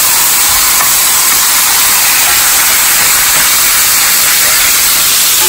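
Steaks sizzling in hot fat in a cast iron skillet, just turned over: a loud, steady hiss.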